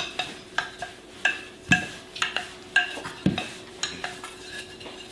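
Dough being rolled out on a table: irregular light knocks and clinks from the rolling pin, about two a second, over a faint steady hum.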